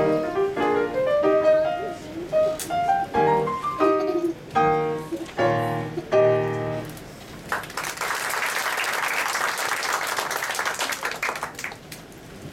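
Solo grand piano closing a piece with two loud, full final chords, followed by the audience applauding for about four seconds.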